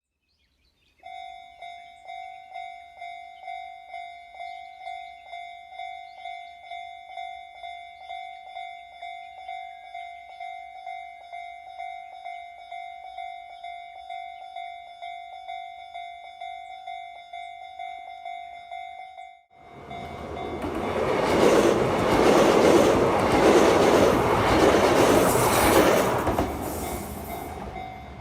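Japanese level-crossing warning bell ringing about twice a second, a repeating electronic ding. About twenty seconds in it breaks off and a Kintetsu train passes loudly over the crossing for about seven seconds, drowning out the bell, which is heard again as the train's noise fades.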